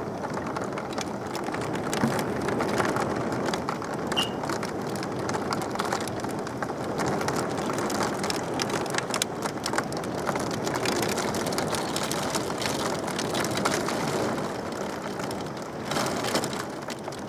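Wind and rain: a steady rushing noise that swells and eases, with many sharp ticks of raindrops through it.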